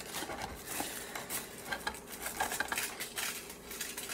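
Irregular light clicks and clatter of small hard objects being handled.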